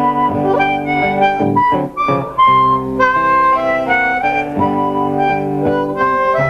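Harmonica playing a melody of held notes over strummed acoustic guitars in a live acoustic band.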